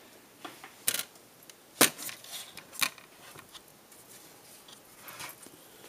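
Handling noise from an LCD monitor's internal metal chassis and circuit boards being moved and set down: a few sharp clicks and knocks, the loudest about two seconds in.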